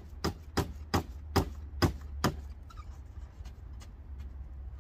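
A hammer driving a nail into wood: about seven sharp blows, two to three a second, stopping a little over two seconds in, followed by a few faint taps.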